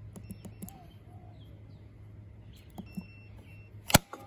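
Keypad buttons clicking on a MoeBot robotic lawn mower's control panel as a PIN code is entered, with short high beeps from the mower. A bird chirps a few times in the background, and a single sharp click near the end is the loudest sound.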